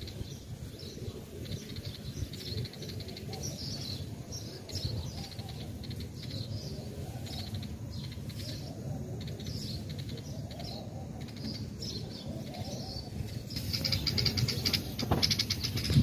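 Birds chirping and tweeting in quick, repeated calls over a steady low rumble. Near the end a louder hiss comes in.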